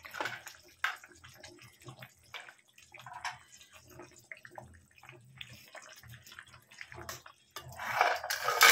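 Thin fish curry broth boiling in a pot as fried rohu pieces are dropped in, giving soft plops, drips and bubbling. Near the end a louder, denser noise comes in as a metal spatula works in the pot.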